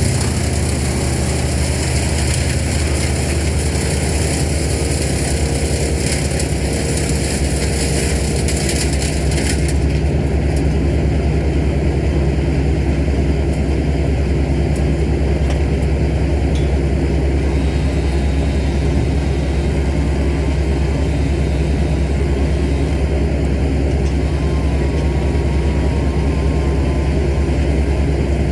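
A heavy engine runs steadily at constant speed. For roughly the first ten seconds a loud, hissing high-pitched noise rides over it, then stops, leaving the engine running alone.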